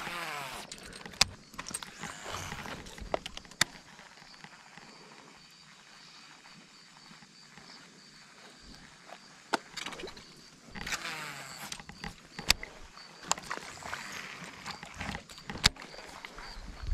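Baitcasting reel in use: the spool whirs and slows during a cast about a second in and again around eleven seconds. Scattered sharp clicks fall in between.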